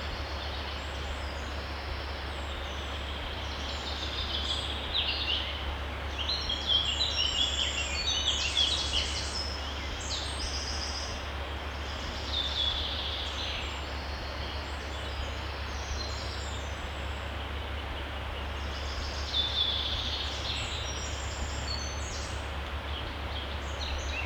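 Woodland songbirds singing in short bursts of phrases, busiest between about four and ten seconds in and again briefly near the middle and the end, over the steady rush of a forest stream and a low steady hum.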